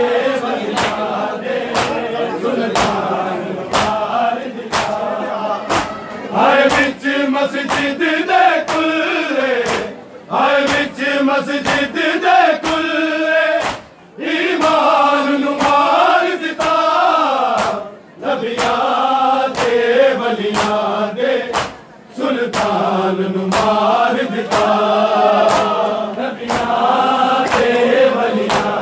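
A group of men chanting a Punjabi noha (Shia lament) in unison, their phrases breaking off every few seconds. Under the singing come steady slaps about twice a second, the beat of matam (hand-on-chest beating) that keeps time with the lament.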